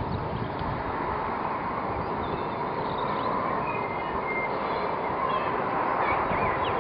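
Steady outdoor background rumble and hiss with faint, scattered bird chirps.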